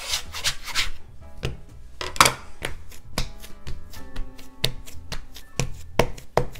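Hands patting and pressing pie-crust dough into a disc on a wooden butcher-block counter, with a metal bench scraper tapping and scraping on the wood: an irregular string of taps and slaps, the loudest about two seconds in.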